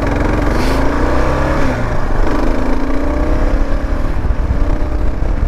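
Kawasaki KLR650's single-cylinder four-stroke engine pulling away and accelerating: the pitch climbs, drops at a gear change about two seconds in, then climbs again, with wind rush.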